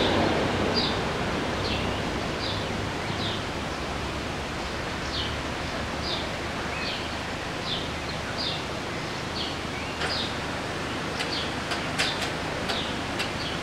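A small bird repeating a short, high, slightly falling chirp about once a second over a steady outdoor hiss. A few sharp clicks come near the end.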